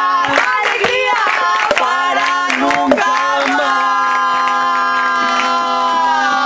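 Women's voices singing a song in harmony over a steady low drone, with rhythmic hand claps. About halfway through the claps stop and the voices hold one long chord.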